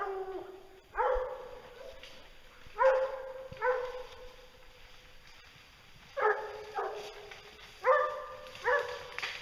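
Bear-hunting hounds baying, a string of about eight drawn-out bays at uneven intervals.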